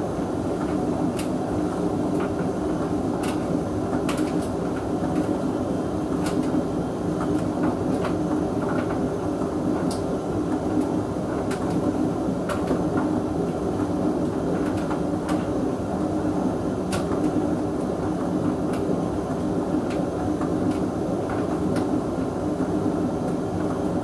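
Hoover VHV680C vented tumble dryer running on a drying cycle: a steady motor and drum hum, with scattered light clicks throughout.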